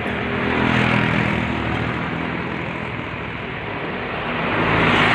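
Road traffic: a small truck's engine hums as it passes, loudest about a second in, then a second vehicle swells past near the end, over steady tyre and road noise.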